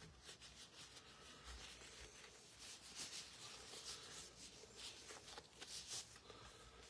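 Near silence: room tone with a few faint, scattered taps and rustles.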